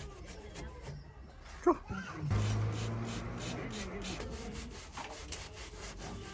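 Rubbing and scrubbing from a car interior being cleaned. A sharp click comes a little under two seconds in, then a low steady hum with a hiss over it.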